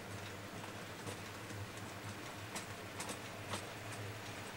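Model railway tank wagons rolling past on the track, their wheels giving irregular sharp clicks over rail joints, a few louder ones between about two and a half and three and a half seconds in, over a steady low hum.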